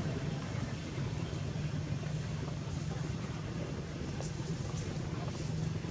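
A steady low mechanical hum with an even hiss above it, with a few faint ticks.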